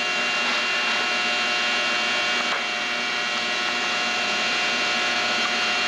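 A steady mechanical hum with a layer of hiss, holding several fixed tones at an even level, with no breaks or knocks.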